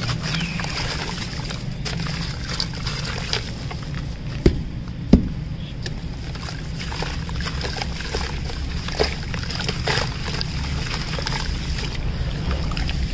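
Wet sand-cement clumps crumbling in the hands and being squished in water in a metal tray, with sloshing, wet crackling and two sharp knocks about four and a half and five seconds in. A steady low hum runs underneath.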